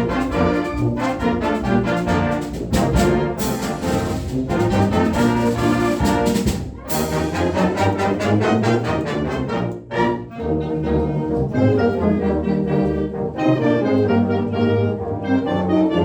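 A brass-heavy band playing a ragtime march, with trombones and trumpets prominent and occasional sharp percussion strikes; the sound drops out briefly about ten seconds in before the band comes back in.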